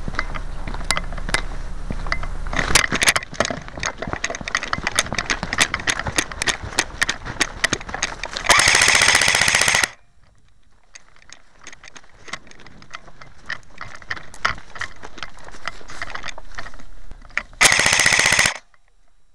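A player running through grass and brush with rustling and irregular footfalls, then two short rapid-fire bursts from his skirmish gun, one about halfway through and one near the end, each lasting about a second.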